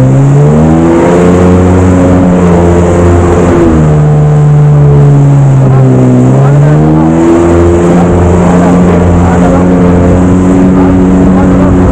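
Jet ski engine running at speed. Its pitch falls about four seconds in as the throttle eases, then climbs again about seven seconds in, with a hiss of water spray throughout.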